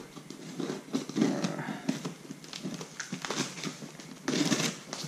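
A cardboard shipping box being cut open and handled: a run of small clicks, scrapes and crinkles, with a louder, longer rasp about four and a half seconds in.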